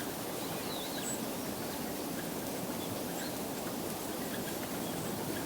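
Steady outdoor background noise with a few faint, short, high-pitched bird calls, one a quick downward slur about a second in.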